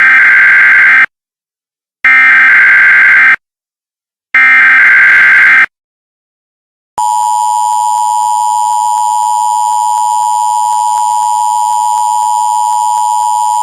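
Emergency Alert System alert: three SAME header data bursts, each about a second long with short gaps between, then after a pause the steady two-tone EAS attention signal held for about seven seconds, announcing the emergency message that follows.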